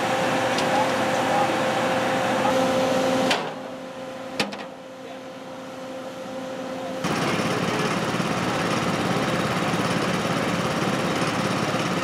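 Truck-mounted 915 MHz microwave asphalt-repair system running while it heats the pavement: a steady machine drone with a constant hum. A few seconds in it drops to a quieter stretch with a single click, then the drone comes back louder and fuller.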